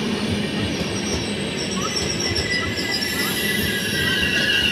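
Passenger train of LHB coaches rolling past, wheels rumbling and knocking over the track, with high-pitched wheel squeal in several tones building from about halfway and loudest near the end.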